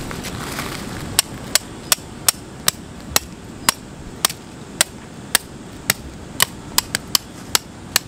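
A hammer driving a tent peg into gravel ground: sharp metallic strikes at about two a second, starting about a second in.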